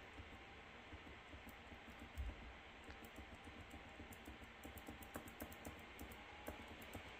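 Faint, irregular clicking at a computer, many light clicks with a denser run past the middle, and a soft thump about two seconds in.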